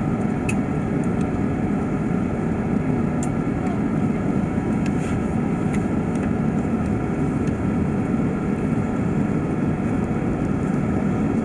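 Steady cabin noise inside an Airbus A380-800 in flight: a low, even rush of airflow and engine sound from its Engine Alliance GP7200 turbofans, with a few faint clicks.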